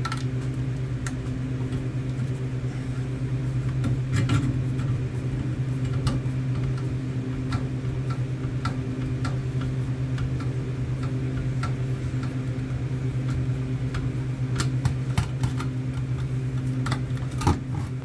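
Copper drain line being cut and worked free with an auto tubing cutter: scattered clicks and a few light knocks from the cutter and pipe, over a steady low machine hum.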